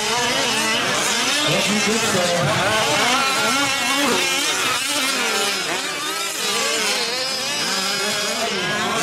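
Several 1/5-scale RC off-road race trucks' small two-stroke gas engines revving over one another, each pitch rising and falling as the throttles open and close.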